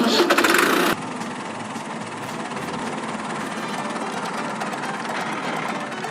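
Truck engine sound effect running steadily, louder for about the first second as it gets going.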